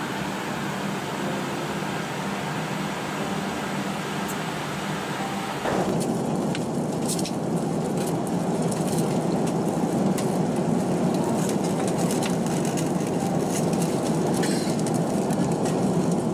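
Steady rushing drone of jet airliner cabin noise in cruise flight, heard from a window seat. About six seconds in it cuts abruptly to a louder, denser rush.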